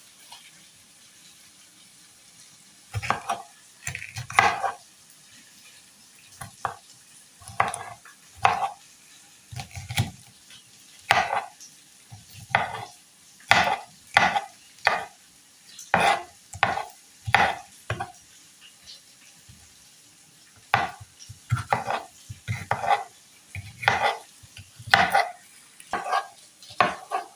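Knife chopping green bell pepper on a cutting board in separate, unhurried strokes, about one or two a second. The chopping starts about three seconds in and pauses briefly about two-thirds of the way through.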